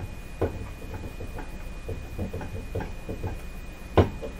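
Irregular small clicks and knocks of hands working inside a tube radio chassis, wiggling a 6SC7 vacuum tube to pull it from its socket. The loudest knock comes about four seconds in.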